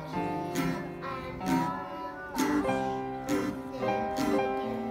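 Acoustic guitar strummed about once a second, with a voice singing over it.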